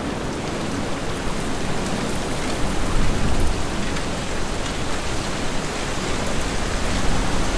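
Steady, even rush of flowing river water and wind, with no breaks or separate events.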